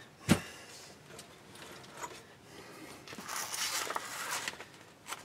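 Handling on a workbench: one sharp knock about a third of a second in and a few soft clicks, then a rustle of a sheet being picked up and handled from about three to four and a half seconds.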